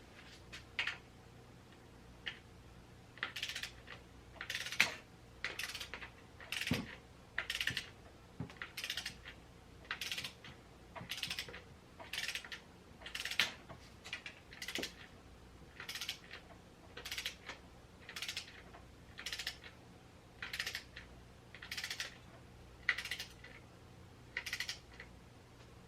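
Ratchet wrench clicking in short, even back-and-forth strokes, about one and a half strokes a second, while tightening the fork's clamp bolts.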